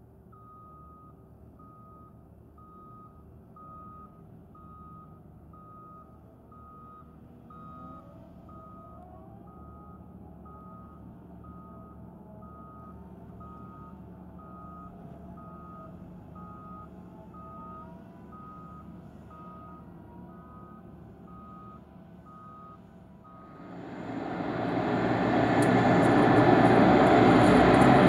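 A ground vehicle's backup alarm beeps at one steady pitch, about one and a half times a second, over a faint engine hum. About 23 seconds in, the beeping stops and the twin turboprops of a Beechcraft King Air grow loud within a couple of seconds and stay loud as the aircraft moves along the runway.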